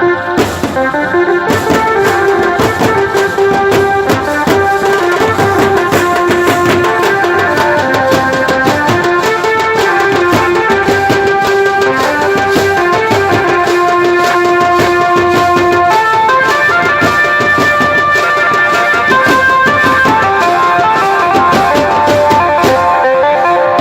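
Background music with a steady beat: a melody over tabla-like hand-drum percussion.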